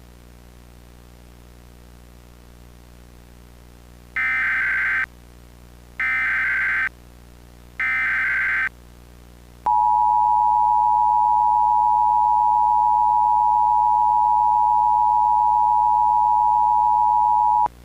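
Emergency Alert System header and attention signal: after a few seconds of faint hum, three short bursts of digital SAME header tones about a second apart, then the steady two-tone EAS attention signal for about eight seconds, announcing an emergency alert.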